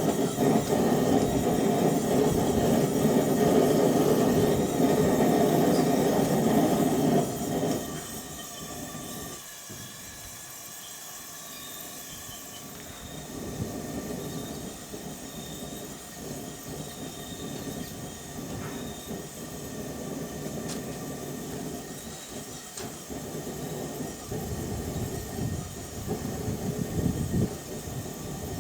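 Gas burner of a single-burner gas forge running with a steady, loud rushing noise during a test firing of its fresh Satanite lining. About seven seconds in it drops sharply to a much quieter hiss, as if the gas is turned down or shut off.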